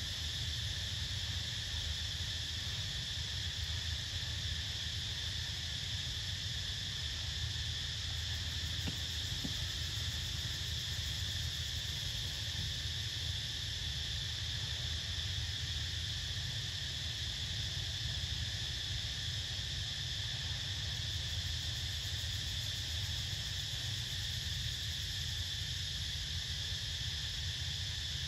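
Steady chorus of forest insects, a continuous high drone that does not change, over a low steady rumble.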